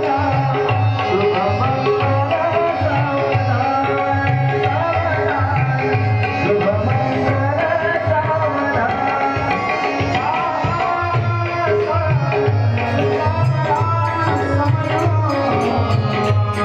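Marathi mangalashtak wedding verses sung with tabla accompaniment: a melodic vocal line that glides and ornaments over a steady tabla rhythm.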